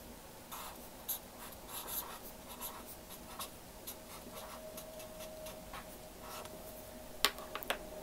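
Marker pen writing Japanese characters on notebook paper: a run of short strokes of the tip across the page, followed by a few sharp clicks near the end.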